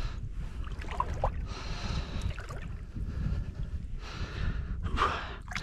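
Small waves lapping against shoreline rocks, swelling up about every two seconds, with a steady low wind rumble on the microphone.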